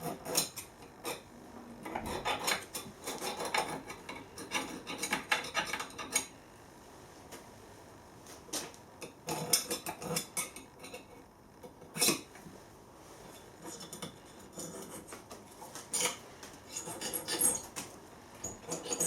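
Marking out around a large hex nut laid on half-inch steel plate: a marking tool scratching on the steel in short scraping strokes, with metal clinks as the nut and plate are handled.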